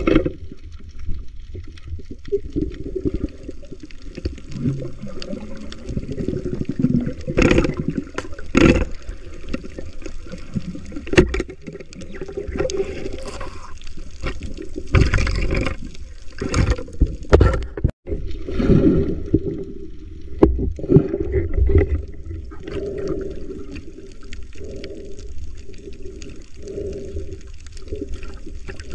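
Muffled underwater water noise picked up by a submerged camera, sloshing and gurgling, broken by several short louder knocks.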